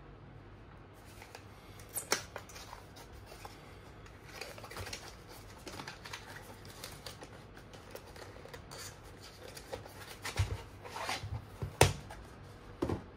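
Handling noises from unpacking: rustling with scattered clicks and knocks, the sharpest about two seconds in and a cluster near the end.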